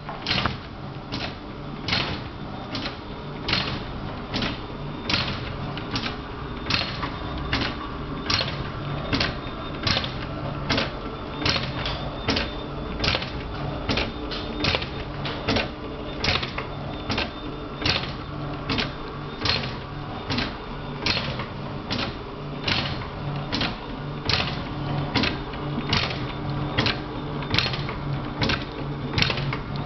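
A headset cord swing-test rig running: a steady motor hum under an even rhythm of sharp clicks, two to three a second, as the earcup swings on the cord's 5-pin plug.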